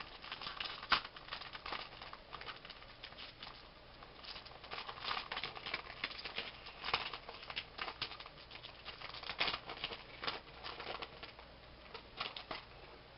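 Foil Pokémon booster pack wrapper crinkling as it is opened and handled by hand: a string of irregular crackles.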